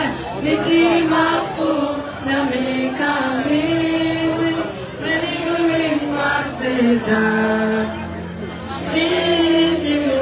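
A large crowd singing a melody together, with amplified music underneath.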